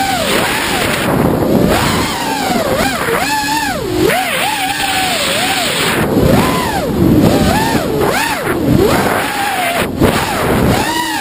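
Onboard sound of an FPV racing quadcopter's brushless motors (Emax 2204) whining at high speed. The pitch swoops up and down rapidly as the throttle changes, over a rush of air noise.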